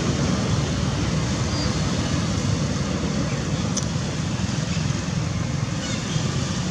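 Steady low rumble of outdoor background noise, with a couple of faint ticks.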